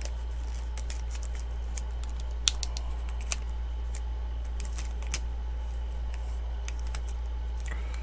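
Light clicks and crinkles of adhesive tape being pulled and pressed onto the plastic fan frame of an all-in-one water cooler's radiator, scattered and irregular, over a steady low hum.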